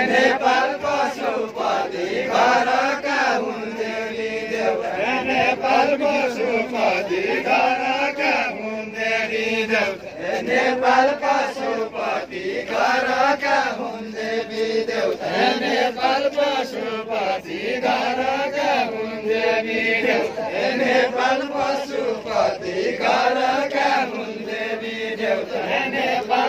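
A group of men singing a Bajureli Deuda, a Far-Western Nepali folk song, together and unaccompanied, repeating a short rising-and-falling phrase over and over as they dance in a line.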